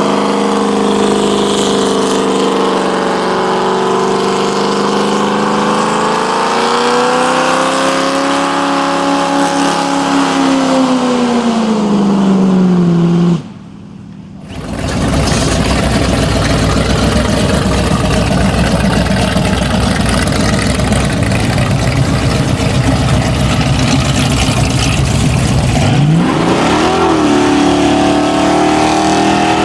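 V8 muscle car engine revving hard during a burnout, its pitch swinging up and down. About 13 seconds in it cuts off abruptly, then returns as a rougher, noisier stretch, and the revs climb sharply again near the end.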